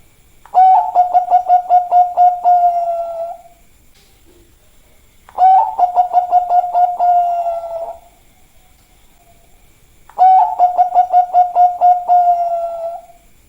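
Zebra dove (Bangkok-line perkutut) singing its cooing song three times, about five seconds apart. Each phrase is a quick run of about ten pulsed coos that ends in a longer, drawn-out coo.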